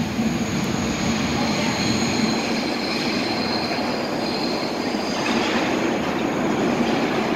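New York City Subway R62 train approaching through the tunnel into the station, its rumble gradually getting louder, with high-pitched wheel squeal coming and going.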